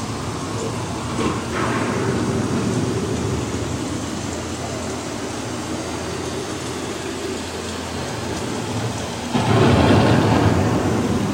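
Thunderstorm sound effects from a boat ride's storm scene: steady rain with rumbling thunder, and a loud thunderclap about nine seconds in.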